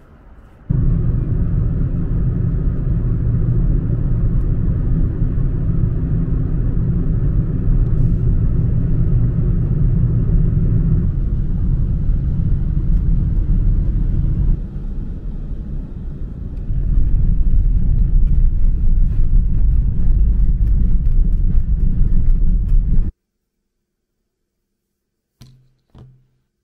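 Strong wind buffeting the microphone: a loud, steady low rumble that cuts off abruptly a few seconds before the end, followed by two faint short sounds.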